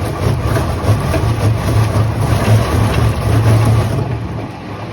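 Heavy sawmill machinery running with a steady low hum and a noisy clatter above it, dropping in level about four seconds in.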